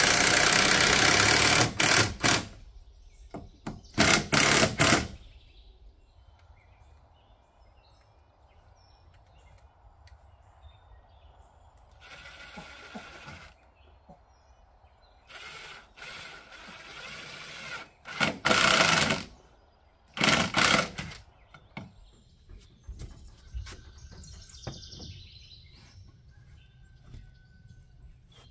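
Cordless drill driving screws into wooden framing in about six short bursts of one to two seconds each, the motor whining under load. Birds chirp faintly in the quiet stretches between bursts.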